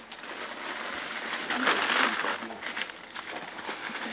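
Gift wrapping paper rustling and crinkling as a present is handled and unwrapped, loudest about two seconds in.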